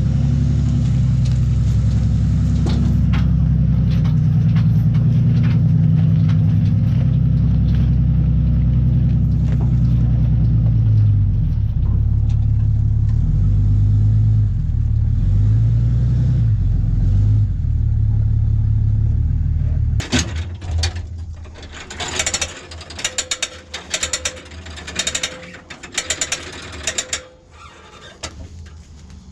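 A large diesel farm tractor engine running steadily and loudly. About twenty seconds in the engine sound gives way to a series of irregular clicks and rustles.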